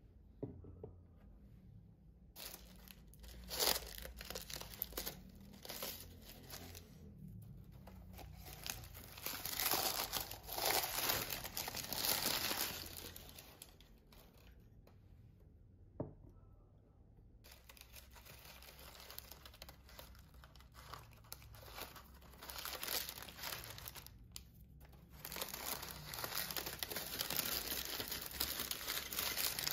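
Honeycomb kraft-paper packing crinkling and tearing as glass tumblers are unwrapped by hand, in bursts with a quieter stretch about halfway through. One sharp tap about halfway through.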